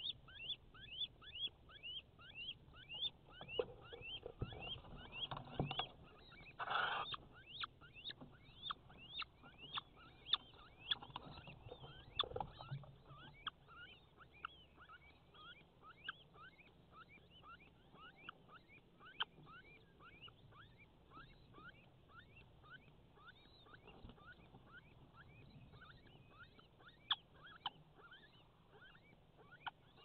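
An animal calling in a fast, steady series of short falling chirps, about three a second, with a few soft knocks and rustles in the first half.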